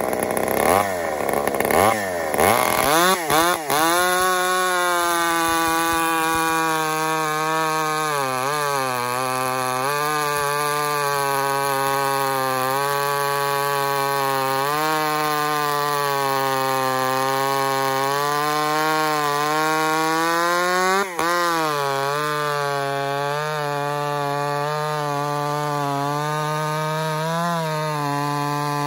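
Two-stroke gas chainsaw revved a few times, then held at full throttle while cutting through a thick log, its pitch steady and wavering slightly under load, with one brief dip about two-thirds of the way through. The chain's cutters are filed to uneven lengths.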